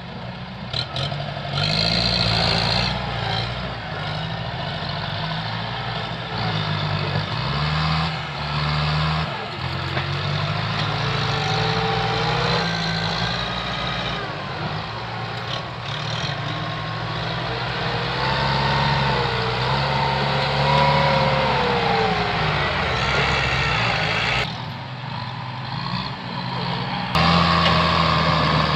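Diesel engines of Kubota farm tractors running under load in deep mud, the engine note rising and falling. Near the end the sound jumps to one closer, louder engine running steadily.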